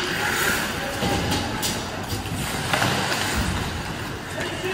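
Ice hockey game play in a rink: skates scraping across the ice as a steady noisy rush, with a few sharp knocks.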